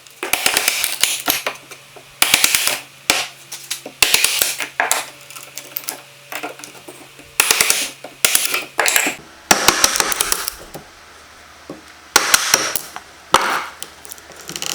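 Irregular series of knocks and clicks from hand tools working on the wooden table, mixed with short scraping or rasping bursts of up to about a second.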